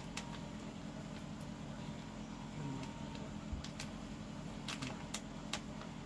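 Faint, soft snoring from a sleeping person, one low breath about halfway through, over a steady low hum with a few light clicks.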